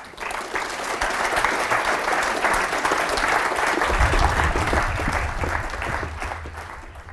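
Audience applauding, many hands clapping together, fading away near the end; a low hum comes in about four seconds in.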